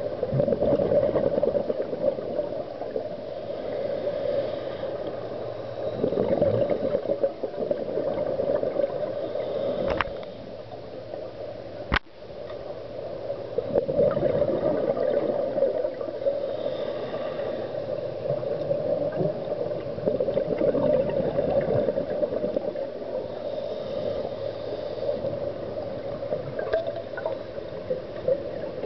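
Underwater audio of scuba regulator breathing: exhaled bubbles gurgle in swells every several seconds over a steady hiss. Two sharp clicks come about ten and twelve seconds in.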